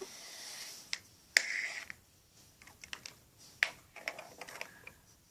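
Small toy figures being handled and picked up: scattered sharp clicks and taps with brief rustling, one louder tap about a second and a half in.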